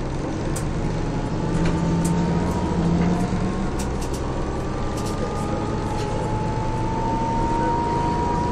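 1996 Jelcz M122MB city bus under way: its Mercedes-Benz OM447hA inline-six diesel runs steadily. A thin drivetrain whine rises slowly in pitch as the bus gathers speed, with scattered light rattles.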